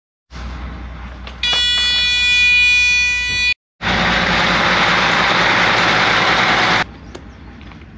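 A loud horn blast of several steady tones sounding together for about two seconds, cut off sharply. After a short break comes a loud rushing hiss lasting about three seconds, which also stops abruptly.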